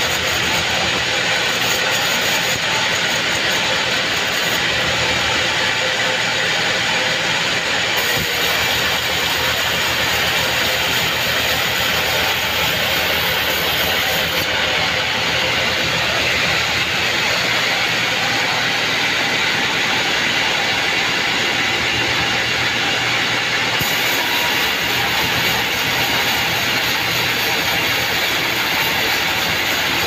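Sawmill band saw running steadily while its blade rips a board from a squared mahogany cant, a continuous loud machine din.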